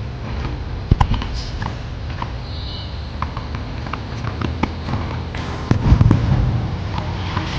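Aerial fireworks bursting: scattered sharp cracks and bangs over a low rumble, with loud booms about a second in and again around six seconds.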